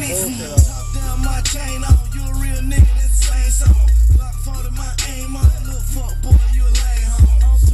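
Rap track with heavy sustained bass and hard kick drums about once a second, played loud through a car stereo's three Type S 12-inch subwoofers.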